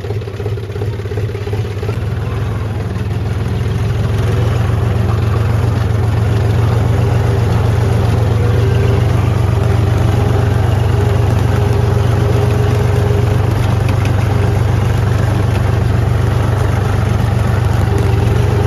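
Tractor engine running with a steady low hum, growing louder over the first four seconds and then holding steady.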